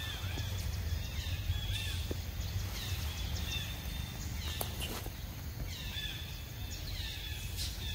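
Outdoor ambience of short, high bird calls that fall in pitch, repeated about once a second, with a few faint clicks and a steady low rumble underneath.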